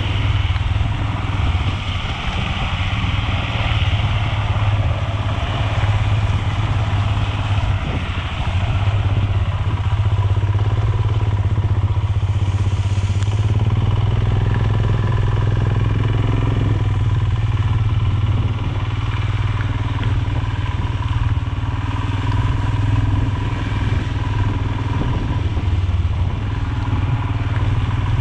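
Royal Enfield Himalayan's 411 cc single-cylinder engine running at a steady throttle while riding, with the tyres on a wet, muddy unpaved road.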